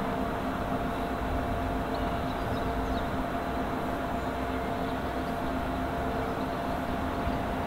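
A1 Pacific steam locomotive 60163 Tornado approaching at a distance: a steady rumble and hiss with a faint steady whine over it.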